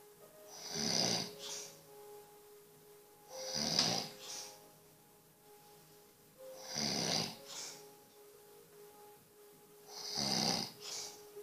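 Snoring: four loud, rasping breaths at an even pace, one about every three seconds, each followed by a shorter, softer breath.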